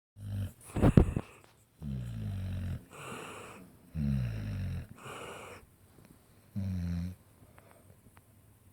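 Someone asleep snoring: three low buzzing snores on the in-breath, the first two each followed by a breathy out-breath. A louder crackly burst comes about a second in.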